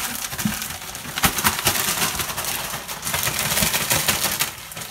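Plastic zip-top bags crinkling and rustling as they are shaken by hand, with chunks of chicken and hot dog inside; a dense, irregular crackle that eases off near the end.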